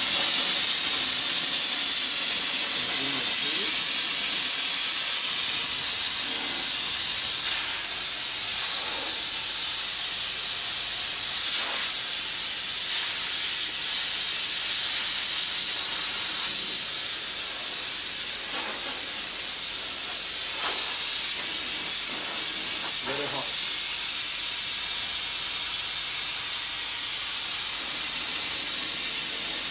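Eumax SJ6-4LG steam cleaner's spray gun blowing a continuous jet of steam from its 6-bar boiler: a steady, loud hiss. The gun is held open to run the boiler down on a small charge of water, and the low-water-level warning comes on partway through while the steam keeps flowing.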